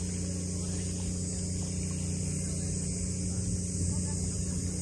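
A steady low motor hum made of several even tones, with a steady high hiss above it.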